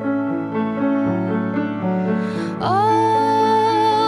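Slow, tender background music led by piano. About two and a half seconds in, a singing voice slides up into one long held note.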